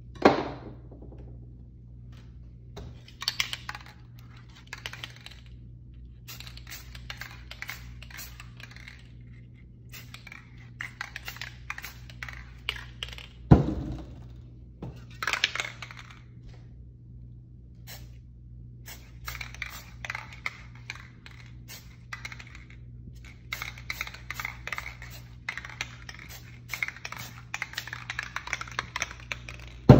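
Aerosol spray-paint cans rattling in short bouts, the metal mixing ball clicking inside as each can is shaken, alternating with spraying onto the canvas. Two loud knocks, one right at the start and one about halfway, over a steady low hum.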